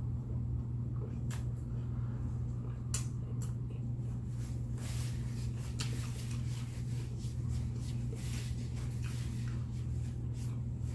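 Someone eating chicken wings close to the microphone: faint, scattered mouth clicks and smacks at irregular intervals, over a steady low hum.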